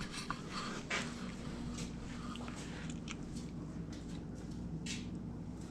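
Faint handling noises: scattered light clicks and rustles, with a slightly louder click about a second in and a rustle near five seconds in, over a faint low hum.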